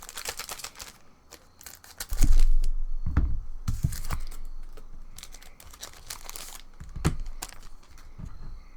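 A trading-card booster pack wrapper being torn open and crinkled by hand, in irregular crackles and rips.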